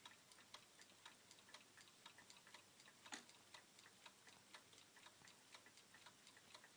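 Pendulum wall clock with a 31-day movement ticking faintly and evenly, about two ticks a second, with one louder click about three seconds in.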